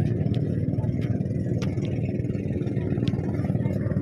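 Steady low drone of a motorized boat's engine, heard from on deck while the boat is underway, with a few faint ticks.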